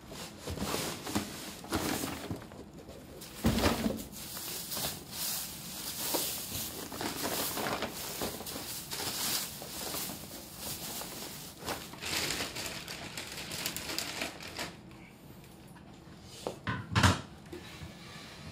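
Rustling and clattering of objects being handled, with scattered knocks; a loud knock about three and a half seconds in and the loudest near the end, after the clatter has died down.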